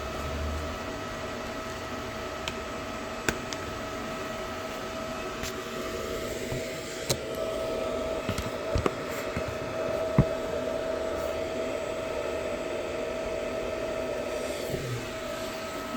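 TIG welding: a steady hiss and whine from the welder and arc, with a few sharp clicks along the way.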